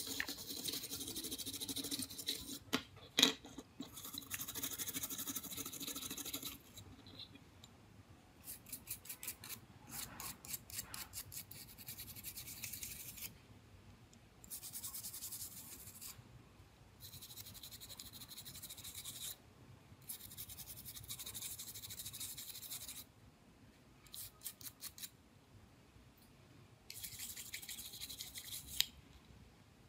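Scraping and brushing strokes on small phone parts, in bursts of a few seconds with short pauses between; some bursts are rapid, even strokes.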